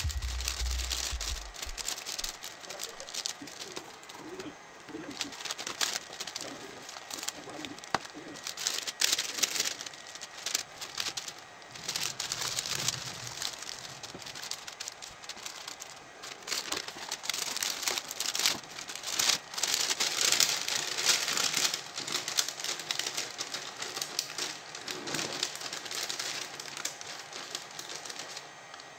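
Thin clear plastic bags crinkling and rustling as they are handled, in irregular bursts with occasional sharp crackles. Music plays for the first couple of seconds.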